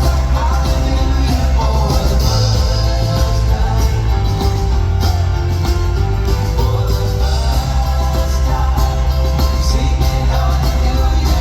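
Live indie-folk rock band playing, with a singing voice over guitars, bass and drums.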